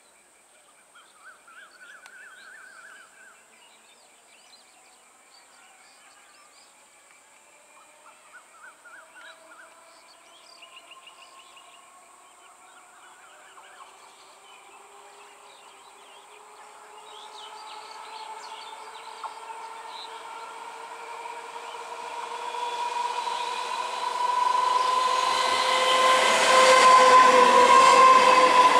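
Electric multiple unit (EMU) local train approaching and passing close, its traction motors whining and rising in pitch as it picks up speed. It grows steadily louder over the second half until the carriages run past near the end.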